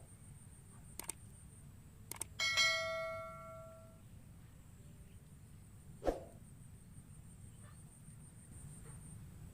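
A single bright bell-like ding about two and a half seconds in, ringing out and dying away over about a second and a half, after a few small clicks. A dull thump follows about six seconds in, over a faint steady high whine.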